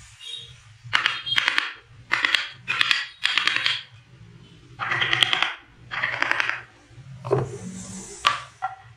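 Hand-pushed wood carving gouge slicing through wood in a series of short cutting strokes, each about half a second of crackly shaving. A couple of sharp knocks near the end as the wooden workpiece is turned over.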